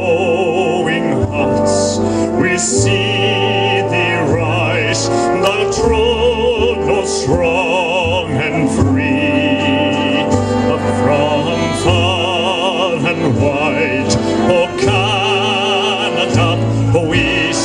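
A man singing in an operatic style, holding long notes with wide vibrato, over instrumental accompaniment with a steady bass.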